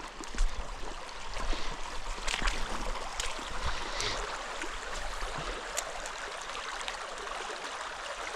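A mountain stream running steadily over rocks at low flow. A few light clicks and knocks are scattered through it.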